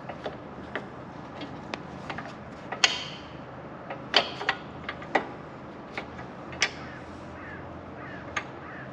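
Irregular sharp clicks and clinks of a sway-bar bushing bracket and its bolt being handled and fitted by hand. There are about a dozen, with the louder knocks a few seconds in.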